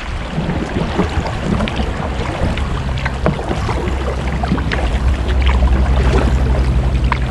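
Kayak paddling: irregular splashes and drips of the paddle blades with water lapping at the hull. A low steady hum comes in partway through and grows louder in the second half.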